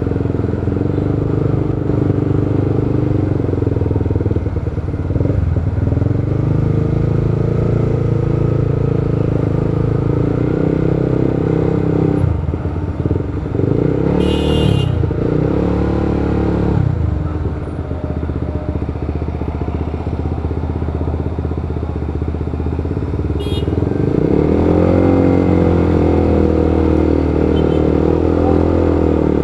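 Motorcycle engine running steadily at low revs, easing off twice along the way, then rising in pitch as it accelerates near the end. A short high-pitched beep sounds about halfway through.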